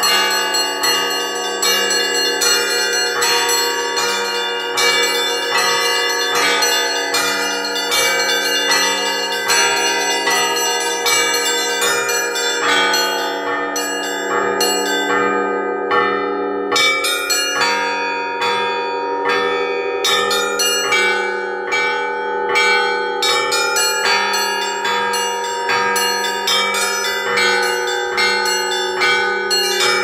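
Russian Orthodox church bells rung by a single ringer pulling clapper ropes, heard close up in the belfry: the small treble bells are struck in a quick running rhythm over the long hum of the larger bells. About halfway through the high bells drop out for a couple of seconds, then come back in.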